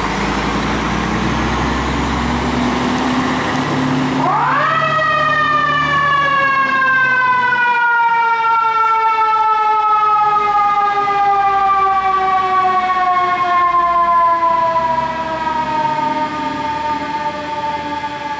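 Fire engine pulling away with its diesel engine under throttle. About four seconds in, its mechanical siren winds up quickly to a high wail, then slowly winds down in pitch.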